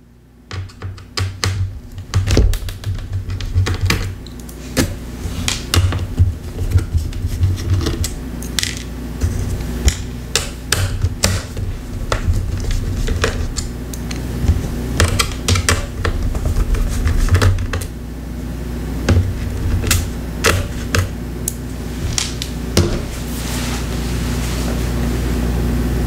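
Small precision screwdriver working out the screws that hold the speakers and battery inside an HP Chromebook 11 G6: irregular sharp clicks and taps of metal on screws and the plastic case, over a steady low hum.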